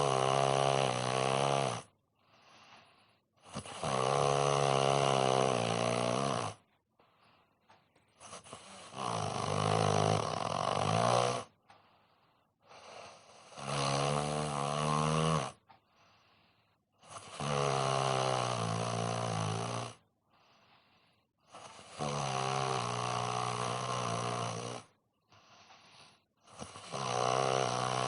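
A man snoring in deep sleep: long, pitched snores of two to three seconds each, coming regularly about every four to five seconds, seven in all, with softer breaths between them.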